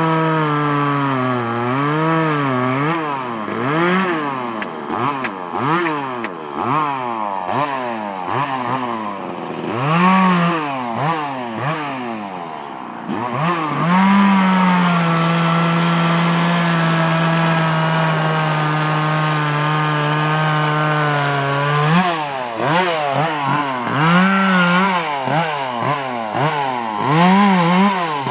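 Two-stroke chainsaw carving into a wood log, its engine revving up and down over and over as the throttle is worked. Midway it holds one steady pitch for several seconds, then the revving up and down starts again.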